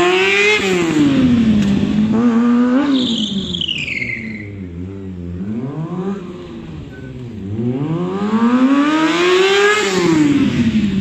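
Sport motorcycle engine revved high and let fall repeatedly during stunt riding, with a long climb in revs starting about seven and a half seconds in. A brief high-pitched falling squeal sounds about three seconds in.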